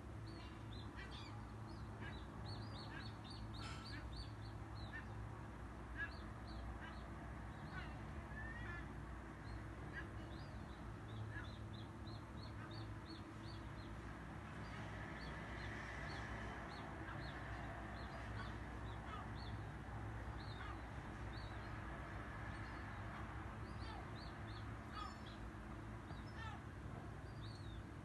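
Birds calling, gulls among them: many short, high calls scattered throughout, over a steady low background hum.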